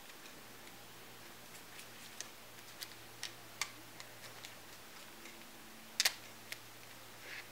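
Scattered small clicks and light paper rustling from hands handling a folded paper toy gun and stretching a rubber band onto it, with a louder double click about six seconds in.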